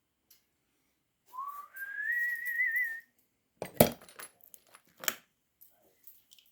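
A man whistles a short phrase that rises and then warbles. About a second later comes one sharp knock, followed by a few lighter metallic taps and clinks.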